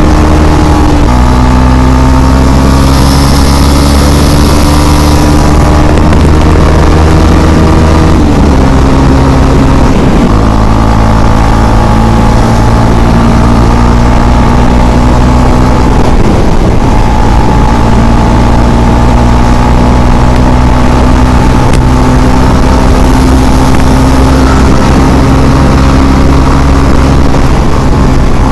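KTM Duke 250's single-cylinder engine running hard at highway speed, its pitch climbing slowly and dropping sharply about a second in and again around eight and ten seconds in.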